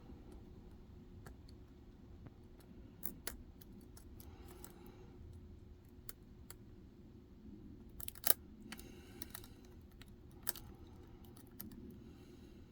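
A metal lock pick working inside a Medeco six-pin cylinder while tension is held: irregular small clicks and short scraping spells as the pins are lifted and set, with a sharper click about eight seconds in.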